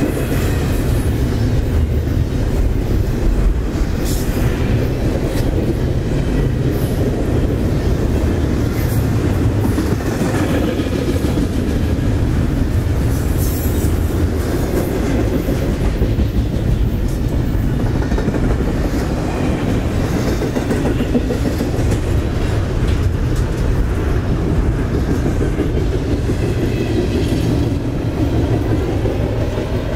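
CSX double-stack intermodal freight train rolling past at speed: a steady heavy rumble of steel wheels on rail with scattered clickety-clack as the well cars cross rail joints. The tail end of the train goes by near the end.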